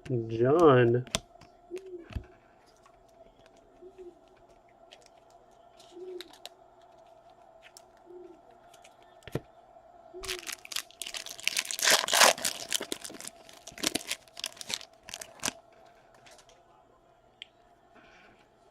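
A trading-card pack's foil wrapper being torn open and crinkled: a dense run of tearing and crackling for about five seconds, starting about ten seconds in, after a stretch of quiet handling.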